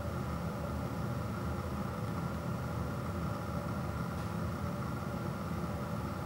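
A steady low droning noise at an even level.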